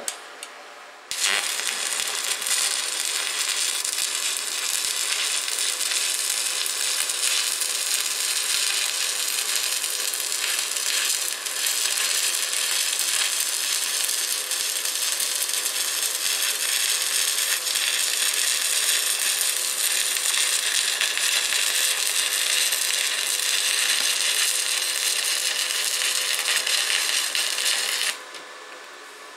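Stick (MMA) arc welding with a 2.5 mm electrode on a Deko inverter welder set to 92 amps: the arc strikes about a second in, crackles steadily for roughly 27 seconds, and cuts off suddenly near the end.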